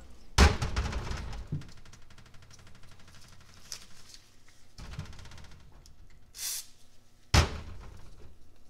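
Metal engine parts (a piston with its connecting rod, the rod cap and nuts) knocking against a metal parts tray as they are handled and set down. There are a few sharp knocks, the loudest about half a second in and another near the end, with a brief hiss between them.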